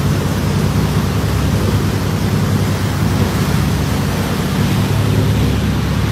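Steady rush of wind and water past a moving boat, over the low, even drone of its engine.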